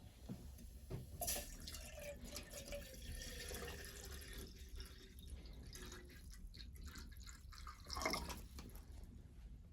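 Water dripping and trickling, with small clicks and splashes.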